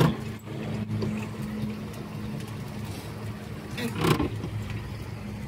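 Boat motor running steadily with a low hum, broken by a sharp knock at the start and a louder thump about four seconds in.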